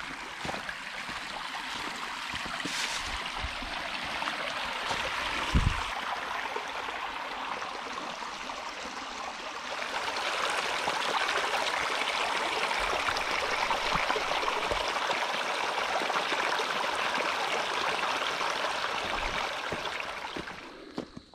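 Stream water rushing steadily, growing louder about ten seconds in and fading near the end. A single dull thump sounds about five seconds in.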